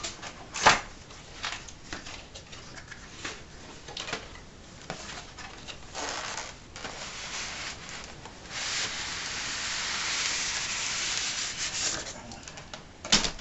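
Cardboard model box being handled and opened: a sharp tap about half a second in, scattered rustles and knocks, then a steady rubbing scrape lasting a few seconds as the styrofoam packing slides out of the box.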